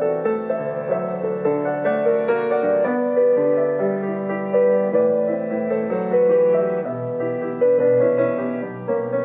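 Background music on piano: a gentle melody of notes played at a moderate pace over sustained lower notes.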